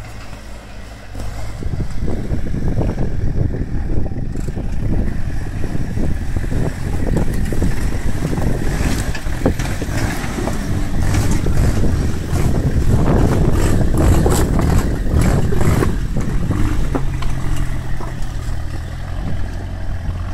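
Lifted Toyota Hilux pickup's engine running and revving under load as it crawls over rock, getting louder about a second and a half in. Repeated sharp clicks and knocks of stones under the tyres come through the middle stretch.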